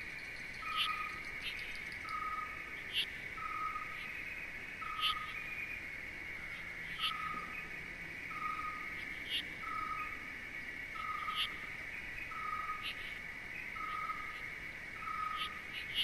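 Nature ambience: a steady insect trill, with a short pitched call repeating about once a second and brief higher chirps every second or two.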